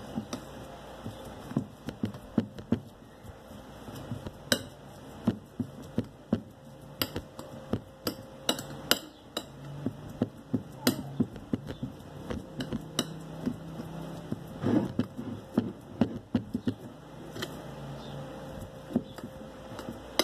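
Boiled potatoes being mashed on a ceramic plate: a utensil knocks and clicks sharply against the plate at an irregular pace, about one or two strikes a second.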